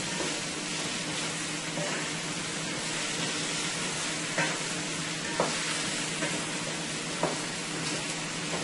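Sliced potatoes with onion and garlic sizzling in hot oil in a pan on high heat, stirred with a wooden spoon; a few light knocks of the spoon against the pan, the sharpest about five and a half seconds in.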